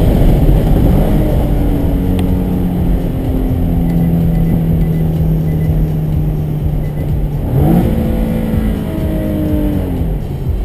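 Nissan 370Z's 3.7-litre V6 engine running under way over a heavy low road rumble: a steady engine note, a quick rise in revs about three-quarters of the way in, then the pitch falling slowly as the revs drop.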